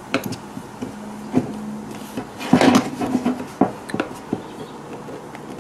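Small screwdriver turning out the screws in the plastic handle of a hot air rework gun: scattered clicks and scraping of metal on plastic, with a louder scrape about halfway through.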